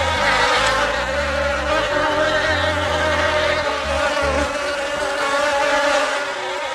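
Bee buzzing: a steady, continuous drone.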